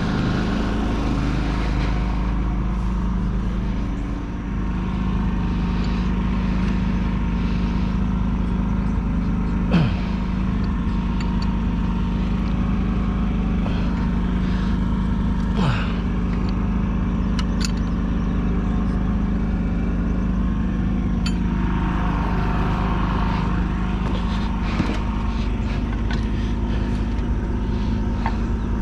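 Diesel engine of a 1976 John Deere 450C crawler dozer running steadily at a constant speed. Twice, about ten and sixteen seconds in, a short tone slides down in pitch over it.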